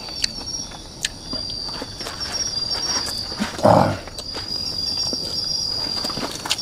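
Crickets chirping steadily, with a few light clicks of chopsticks and tableware and a brief low voice sound a little past the middle.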